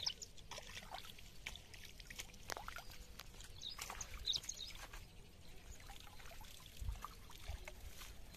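Water dripping and trickling off a cast net, with small splashes, as the net is hauled out of a pond and gathered in by hand; faint throughout.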